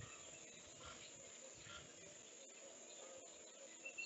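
Near silence: faint outdoor ambience with a few soft, short bird chirps scattered through it.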